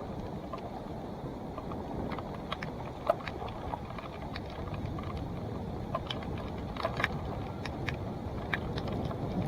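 Mountain bike rolling over rough trail: a steady low rumble with scattered sharp clicks and rattles from the bike, one sharper knock about three seconds in.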